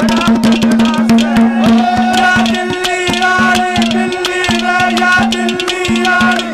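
Harmonium playing a melody in held notes over a steady drone, with a fast hand-drum rhythm: the instrumental interlude of a Haryanvi ragni.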